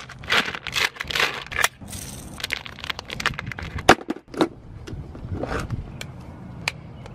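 Crinkling of a plastic bag of soft-plastic fishing lures being handled, then a few sharp plastic clicks and snaps as the blue dividers of a clear plastic tackle box are worked.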